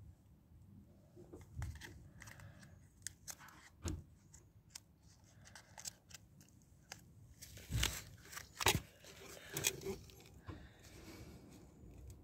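Irregular small clicks and rustling crackles, a few louder clicks grouped about eight to nine seconds in.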